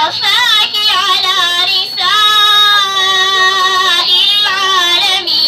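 A girl's voice reciting the Qur'an in a melodic, chanted tajweed style into a microphone. The recitation comes in phrases with short breaths between them, with wavering ornamented turns and one long held note in the middle.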